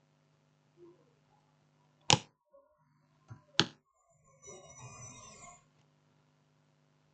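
Small plastic phone parts being handled and fitted together: two sharp clicks about a second and a half apart, then a short scraping rustle, over a faint steady electrical hum.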